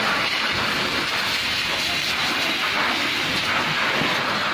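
Steady rushing hiss of a fire hose jet at full pressure, spraying water into a burning structure.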